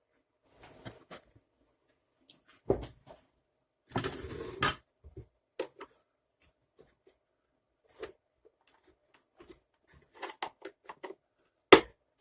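Plastic clicks, knocks and a brief scrape as the plastic housing and button latches of a Hoover T2424 vacuum cleaner are handled and pried at during disassembly, with one sharp click near the end.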